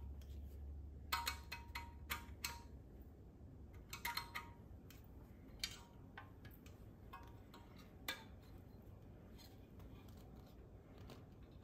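Light metallic clicks and clinks of sheet-metal cylinder air guides and their retaining springs being worked into place between the cylinders with a screwdriver: a cluster of clicks in the first few seconds, then single clicks every couple of seconds.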